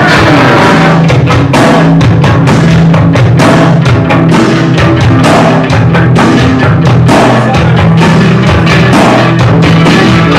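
Live rock band playing loud: drum kit beating a fast, steady rhythm under electric guitar and a held low bass line, with no singing.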